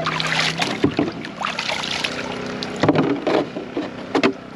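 Sounds on a small fishing boat during fish cleaning: a steady low hum, a rush of noise over the first second, and a few sharp knocks.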